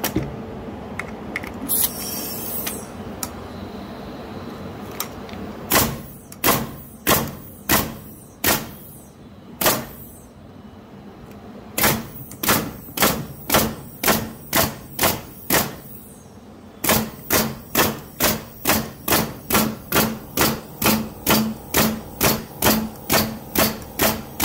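Senco FramePro 701XP pneumatic framing nailer test-fired into a wooden board, several dozen sharp shots after a short hiss: a few spaced shots first, then about two to three a second. Every nail fires and no air leak is heard: the rebuilt nailer is working properly.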